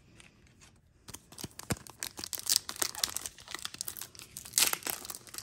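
Foil wrapper of a Pokémon Trick or Trade booster pack crinkling in the hands and being torn open, in quick crackles that begin about a second in, loudest near the end.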